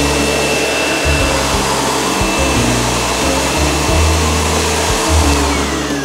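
SEBO Automatic X4 upright vacuum cleaner running on soft carpet, a steady motor and suction rush. A whine in its noise falls in pitch near the end.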